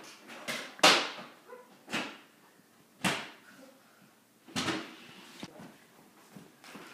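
A handful of sharp knocks, about one a second, the loudest near a second in.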